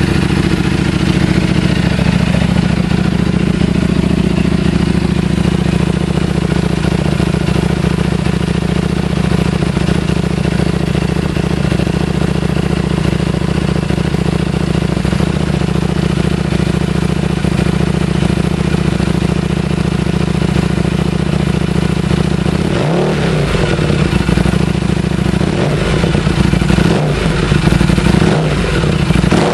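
Buell 1125R's 1125 cc V-twin running through an FMF Apex exhaust: it idles steadily, then near the end the throttle is blipped several times in quick succession, the revs rising and dropping back each time.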